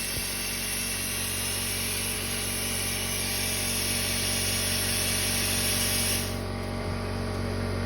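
Vevor CNC plasma cutter's arc hissing steadily as it cuts 16-gauge sheet steel, then cutting off abruptly about six seconds in. An air compressor keeps running underneath with a steady low hum.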